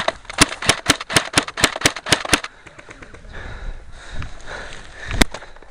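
Airsoft rifle firing a quick string of single shots, about four a second for roughly two seconds, then one more shot near the end.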